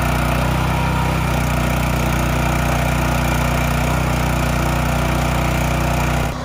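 Small gasoline engine of a ride-on trencher-backhoe running steadily at constant speed; it cuts off near the end.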